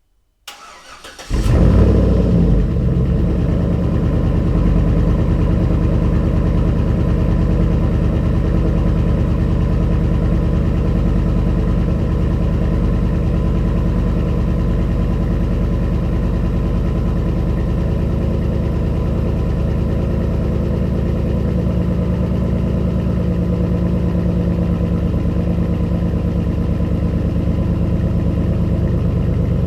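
Chevy Suburban's 5.3-litre V8, muffler and resonator deleted, cranked and catching about a second in. It flares briefly, then settles into a steady idle for the rest.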